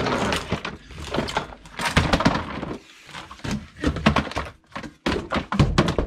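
Irregular thuds and clatter of a canister vacuum cleaner and its hose being picked up and shifted about on the floor.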